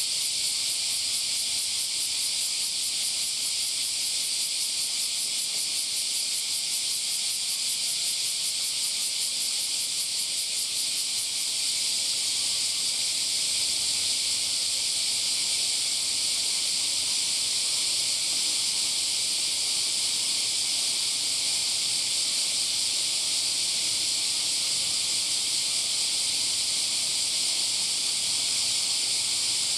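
Chorus of summer cicadas: a steady high-pitched buzzing, with a fast pulsing in the first ten seconds or so.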